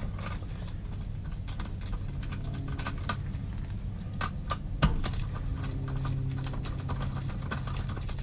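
Hand socket ratchet clicking in short irregular runs as a fastener is run in, with one sharper metallic knock about five seconds in, over a steady low hum.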